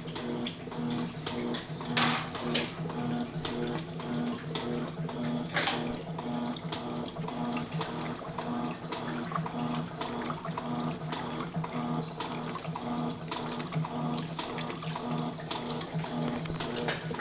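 Electrolux LM06 washing machine agitating a load of clothes during the wash cycle: the motor's low hum pulses in a regular rhythm over water sloshing and small knocks from the churning load.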